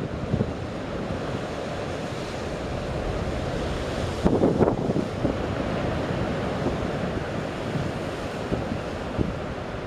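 Choppy sea waves washing and breaking against a rock and concrete-tetrapod breakwater, with wind buffeting the microphone; a louder surge comes about four and a half seconds in.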